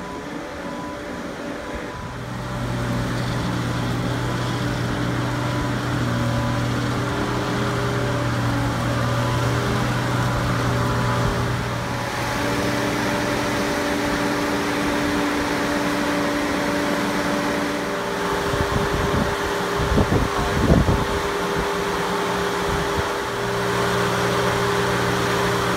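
An engine running steadily, a low hum whose pitch shifts in steps now and then, with a few knocks about three-quarters of the way through.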